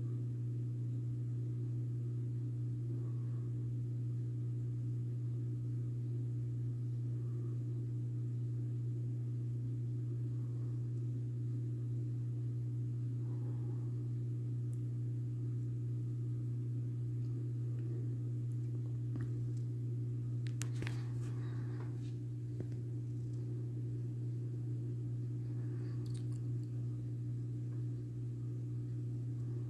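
Litex Crown 42-inch ceiling fan running, its motor giving a steady low hum, with a few faint clicks about two-thirds of the way through.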